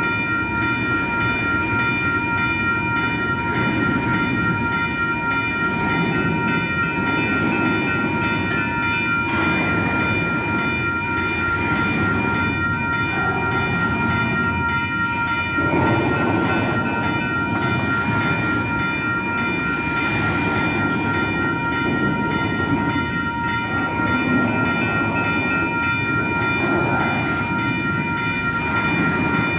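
A double-stack intermodal freight train of TTX well cars rolls steadily past, its wheels and cars giving a continuous rumble. Several steady high ringing tones sound over it throughout.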